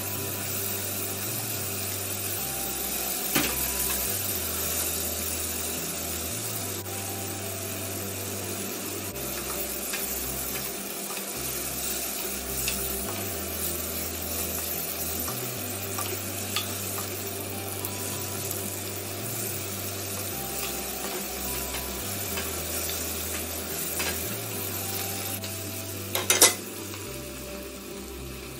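Mushrooms, baby corn and snow peas sizzling in a pot while a spatula stirs and scrapes them, with scattered clicks of the spatula against the pot. A sharp knock near the end is the loudest sound.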